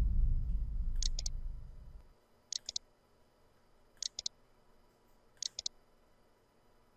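A deep low rumble fading away over the first two seconds, then computer mouse clicks: four quick double clicks about one and a half seconds apart.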